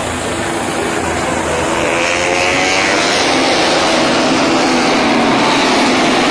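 A pack of Moto3 racing motorcycles, 250 cc single-cylinder four-stroke engines, passing together on a wet track. Many engine notes overlap and rise in pitch as the riders accelerate, and the sound grows louder as the pack comes closer.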